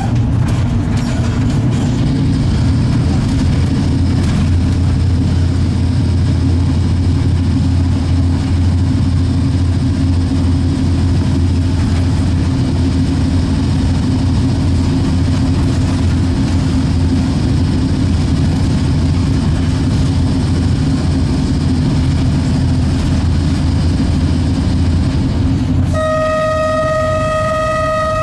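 LEW EL2 industrial electric locomotive running, heard from the cab as a steady low hum. Near the end its horn sounds one long steady blast.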